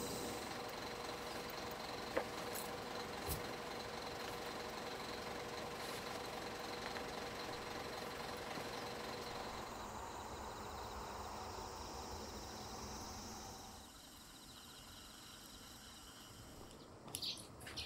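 Evening outdoor ambience: insects trilling steadily over a low, even hum, the whole getting quieter about three-quarters of the way through.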